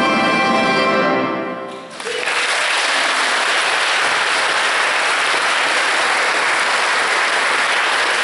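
A Russian folk-instrument orchestra holds its final chord, which fades out just under two seconds in. The audience then breaks into steady applause.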